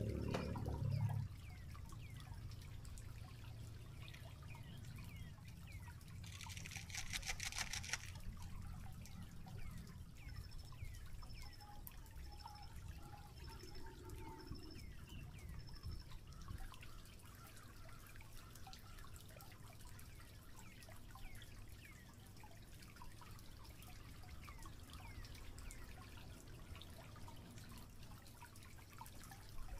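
Shallow stream trickling over rocks, a steady low wash with fine dripping ticks. A short buzzing burst comes about six seconds in, and a run of six short, evenly spaced high notes follows a few seconds later.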